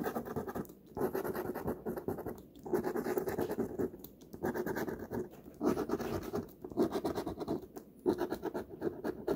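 Scratch-off lottery ticket being scratched, the coating rasped off in quick strokes. The scratching comes in bouts of about a second with short pauses between them.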